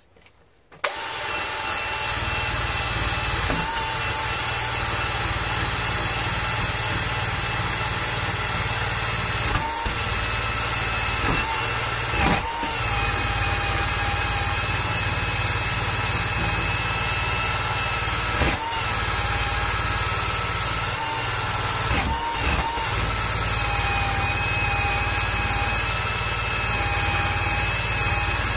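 Cordless drill spinning a wire wheel brush against a freshly cast copper ingot held in a bench vise, scrubbing the surface clean. The motor starts about a second in and runs steadily, its whine shifting a little with load, with a few short breaks as the brush is lifted off and set back on the bar.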